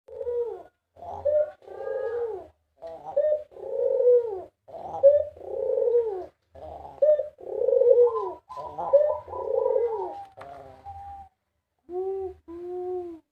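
White ringneck dove (Barbary dove) cooing over and over, about one coo a second, each with a falling glide, ending with two shorter coos.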